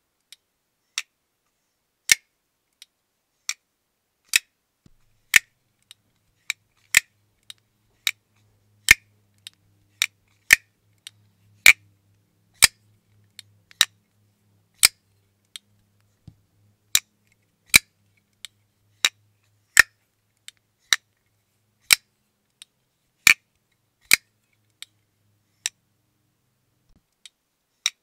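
Grayman SATU titanium frame-lock folding knife flicked open and closed over and over: sharp metallic clicks as the heavy blade snaps open and the frame lock engages, and as it is snapped shut, about one click a second, some louder than others.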